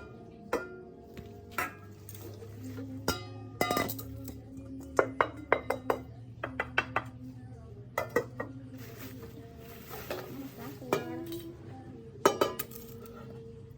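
Kitchenware being handled: repeated sharp clinks and knocks of hard dishes or pans against each other, some ringing briefly, in irregular clusters. Background music plays underneath.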